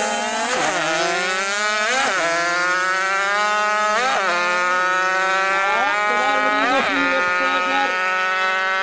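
Two two-stroke racing mopeds launching and accelerating flat out down a drag strip. Their engine pitch climbs in long rising runs and drops sharply at each gear change, four shifts in all.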